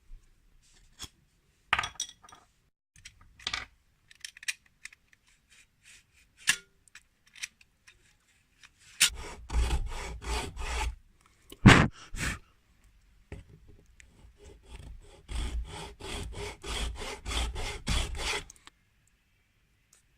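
A hand tool worked back and forth on wood in two runs of quick, even strokes, about five a second, after some scattered knocks and clicks of handling. A single sharp knock falls between the two runs and is the loudest sound.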